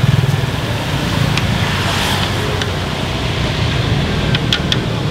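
Motorbike street traffic running steadily past, with a hiss of oil frying in a wok over it. A few sharp metallic clicks come near the end.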